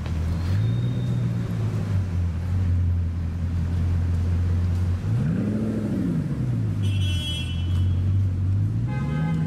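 Bugatti Chiron's quad-turbo W16 engine running low and steady as the car pulls away slowly, with one blip of revs rising and falling about five seconds in and a smaller one near the end. Brief horn toots sound about seven seconds in and again near the end.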